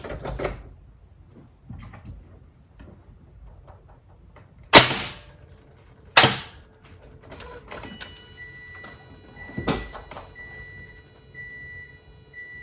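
Two sharp clunks about a second and a half apart, then a car's electronic warning chime: a steady tone with a beep repeating about once a second. No engine is heard cranking or running.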